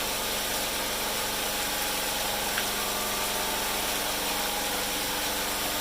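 Small fishing boat's engine running steadily at an even speed, with a fast regular pulse.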